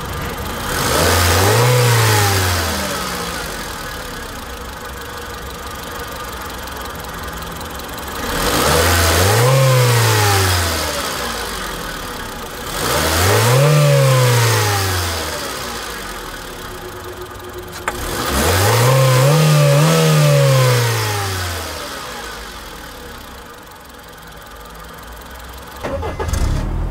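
Honda Civic 1.6-litre VTEC four-cylinder engine idling and blipped four times, each rev rising quickly and falling back to idle over two to three seconds.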